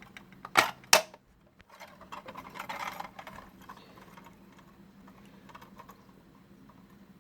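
Two sharp plastic clicks about half a second apart, as the Kit Cat Klock's plastic back cover snaps into its clips. After them come a second or two of rustling handling.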